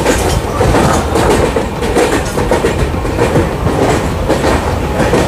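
Indian Railways passenger train on the move, heard from the coach: a loud, steady rumble and rattle of the wheels running over the track.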